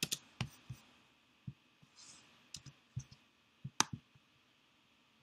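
Computer keyboard keys and mouse button clicks, a few separate sharp clicks at uneven intervals, the loudest about three-quarters of the way through.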